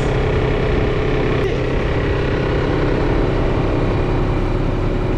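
Truck engine idling steadily: a constant low drone with a steady tone on top, unchanging throughout.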